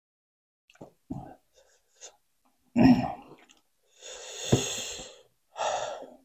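Close-up mouth and breath noises of someone eating: a few small smacks, then three louder breathy sounds, the longest about a second long with a sharp click in its middle.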